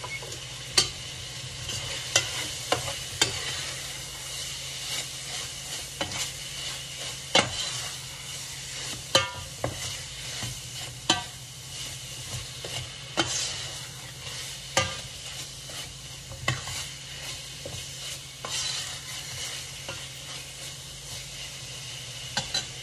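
Ground beef frying in a big pan with oil, sizzling steadily while a utensil stirs it, knocking and scraping against the pan every second or two. A steady low hum runs underneath.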